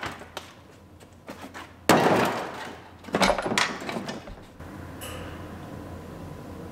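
Large plastic wheel-well liner being pulled free and dropped, landing with a loud clattering thud about two seconds in, followed a second later by a few lighter knocks as it settles.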